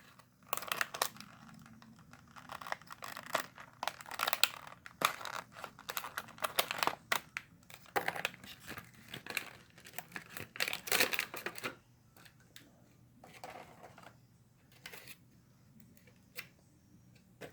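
Blister packaging of a die-cast toy car being crinkled and torn open by hand: a busy run of irregular plastic crackles and card tearing that stops about twelve seconds in, followed by a few faint clicks.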